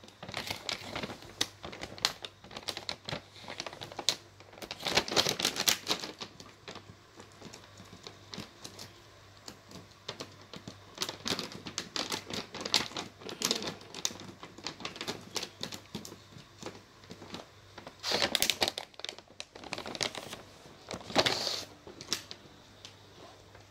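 Dry cat biscuits rattling and clicking into a bowl in several short pours, with scattered single clicks between them.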